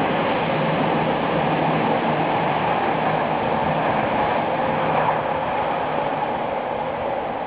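Electric commuter train running along the track and moving away, wheels rumbling on the rails with a faint motor hum. The noise holds steady, then fades over the last couple of seconds as it draws off.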